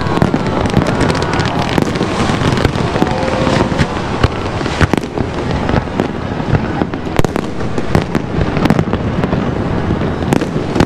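Fireworks display: aerial shells and firecrackers going off in a dense barrage of bangs and crackles, many in quick succession without a break.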